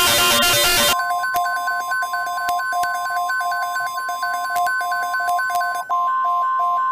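Weather alert broadcast: a harsh burst of buzzing noise ends about a second in. Then the steady single attention tone of NOAA Weather Radio sounds, getting louder near the end, under a quick repeating two-note beeping.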